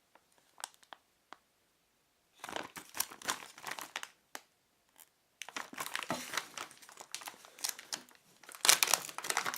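A product packet being opened by hand: a few light clicks, then bursts of crinkling and rustling packaging.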